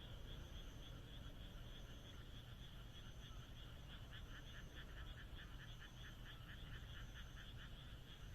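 Frogs calling at night, faint: a steady high chorus throughout, and from a few seconds in one frog joins with a rapid run of croaks, about five or six a second.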